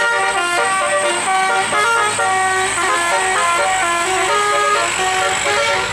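Bus telolet horn, a multi-tone air horn, playing a quick melody of short notes that step up and down in pitch.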